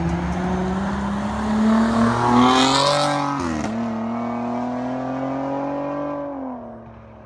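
Dodge Challenger with its mid muffler and rear resonator deleted, engine revving up: the exhaust note rises for about three seconds, dips briefly, then holds steady and fades out near the end.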